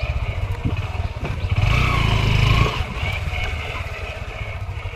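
Motorcycle engine running while riding along a dirt track. It swells louder for about a second, roughly a second and a half in.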